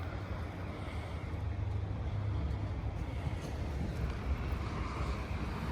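Low, steady vehicle rumble, like an engine idling, with some wind on the microphone.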